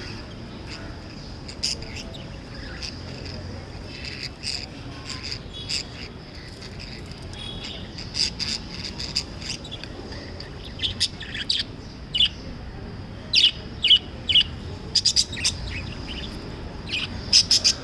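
Pet budgerigars chirping in short, sharp calls, scattered at first and coming thicker and louder in the second half.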